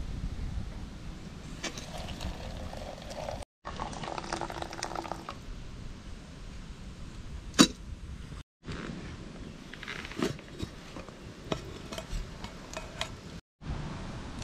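Hot water poured from a kettle into an aluminium camping cooker pot. One sharp metal clink comes about seven and a half seconds in, followed by scattered lighter clinks of the aluminium pots and lid being handled. The sound drops out briefly between shots.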